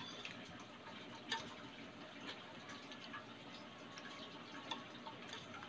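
Wire whisk stirring a thick, wet cassava cake batter in a glass baking dish: faint liquid squelching with light ticks of the whisk against the glass, one a little louder about a second in.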